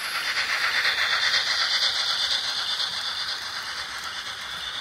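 HO scale model train rolling past on sectional track: a fast, fine clicking rattle of wheels and running gear, swelling over the first second and then slowly easing off.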